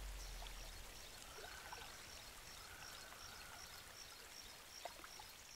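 Faint outdoor ambience: the steady hiss of a running creek, with a high, short chirp repeating about three times a second. The tail of outro music fades out in the first second.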